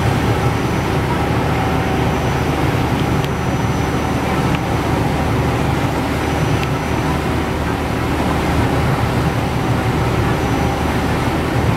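A small ferry's engine running steadily under way: a loud, even drone.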